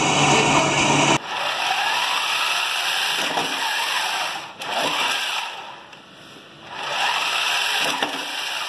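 A band saw running as it cuts plywood, cut off abruptly about a second in. Then the electric motors of a robot cube gripper whir as they spin its green intake wheels against a foam power cube, the pitch rising and falling, with a quieter lull for about a second past the middle.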